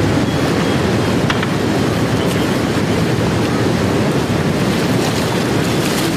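Fast-flowing river water rushing steadily over shallow rapids.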